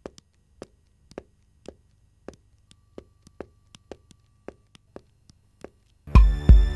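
Footsteps of two people walking quickly, a light, sharp step about every third of a second. Near the end two deep thuds and sustained synthesizer music come in.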